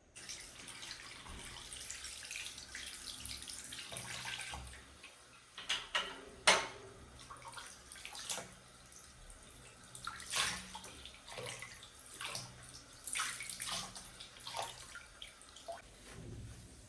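Water running from a tap with splashing, louder splashes coming now and then.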